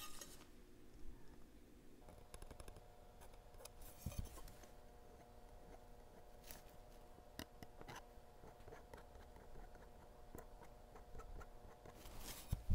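A spreader scraping and rubbing ceramic paint through a mesh stencil onto glass: faint, intermittent scratchy strokes with small clicks. A faint steady hum sits underneath, and there is a louder knock near the end.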